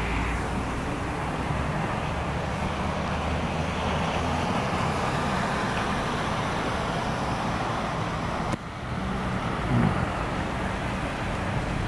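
Heavy downpour pouring steadily, mixed with the hiss of cars driving on the wet street. About ten seconds in there is a short louder swell with a sliding low tone.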